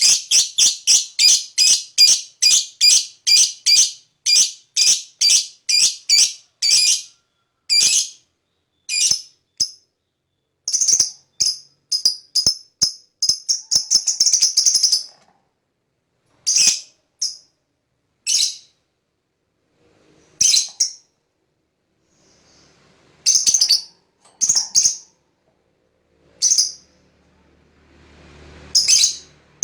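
Lovebird chattering in a long, rapid run of shrill chirps, about three a second, for some fifteen seconds (the 'ngekek' call used to provoke other lovebirds). It then gives single spaced-out calls every second or two. A faint low rumble rises near the end.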